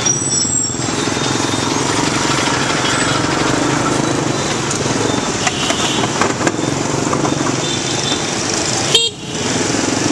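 Motorcycle engine running while riding through dense city traffic, with other vehicles' horns beeping, most clearly about five to six seconds in. A single sharp knock comes near the end.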